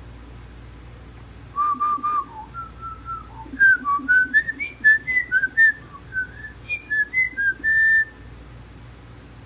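A whistled tune of short, clear notes that starts about a second and a half in, climbs stepwise in pitch, and ends on a longer held note near the end.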